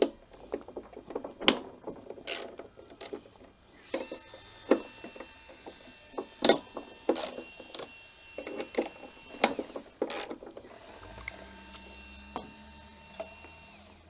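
Hand tools clicking, scraping and knocking on the metal of a Victa Power Torque lawnmower's pull-start assembly as it is unscrewed and taken off the engine: a string of irregular sharp clicks and clatters.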